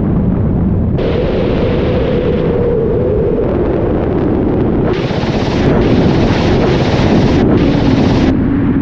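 Ka-52 helicopter in flight, heard from on board: a steady drone of coaxial rotors and engines mixed with wind rush, its hum rising in pitch about a second in. From about five seconds in, a louder, hissier rushing comes and goes in several blocks for about three seconds, each starting and stopping abruptly.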